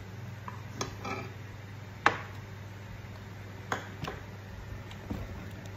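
A handful of short clinks and knocks of an eating utensil and a ceramic plate on the table, about six in all, the loudest about two seconds in, over a steady low hum.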